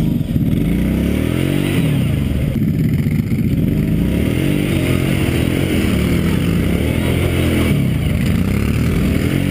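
Kawasaki Brute Force 650 ATV's V-twin engine revving up and down over and over as the quad works through deep mud.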